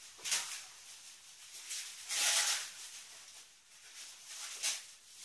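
Plastic packaging crinkling and rustling in short bursts as a parcel is unwrapped by hand, the longest and loudest burst about two seconds in.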